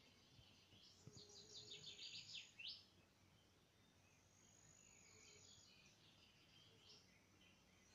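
Near silence with faint birdsong: a quick run of rapid, high chirps sweeping downward about a second in, then a few fainter chirps later.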